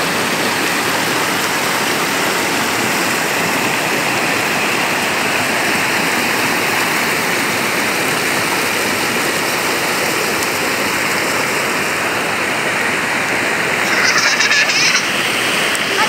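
Water of a creek cascading over and between granite rocks at a waterfall: a steady, loud rushing. A brief high-pitched sound cuts in near the end.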